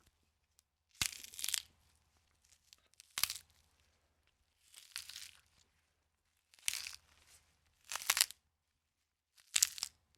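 Bone-cracking sound effect: six short crackling crunches, spaced a second or two apart.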